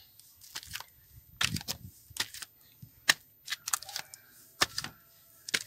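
Irregular sharp clicks and knocks, about a dozen, from a man climbing up with a phone in hand.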